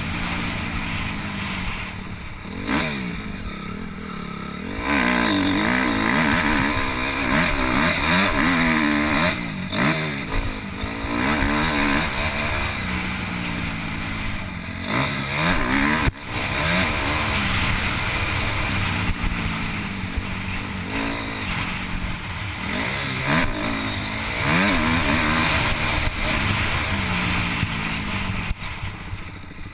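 Motocross bike engine heard on board, revving up and easing off again and again as the rider accelerates, shifts and rolls off along the track. The engine drops back briefly a few seconds in, and a single sharp knock comes about halfway through.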